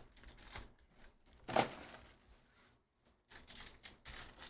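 Trading-card pack wrapper being handled and torn open by hand: a sharp rustle about one and a half seconds in, then a run of short crinkles near the end as the foil is ripped.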